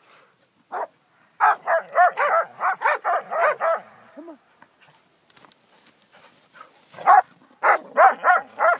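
A dog barking in quick, high-pitched runs of about four barks a second: a run of about ten barks, a pause, then another run near the end.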